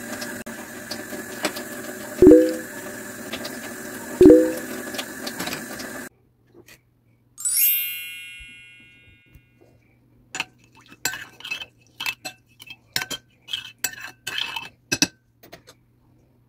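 A metal spoon clinking and tapping against a ceramic bowl as salt and shredded carrots go in: one ringing clink that fades over about a second, then a run of quick sharp taps. Before that, a steady hum with two short knocks cuts off suddenly.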